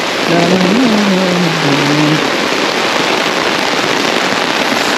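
Heavy rain pouring steadily, pattering on an umbrella overhead and falling into the flooded lane.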